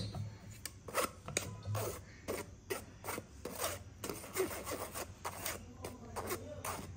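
A spoon scraping and rubbing flour and cocoa powder through a stainless steel mesh strainer, in repeated short, irregular strokes.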